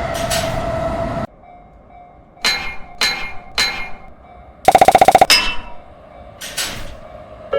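A train running through a level crossing, its alarm sounding a repeating tone, cuts off abruptly just over a second in. Then come three sharp ringing strikes about half a second apart, a loud fast rattle around five seconds in, and one more strike near the end.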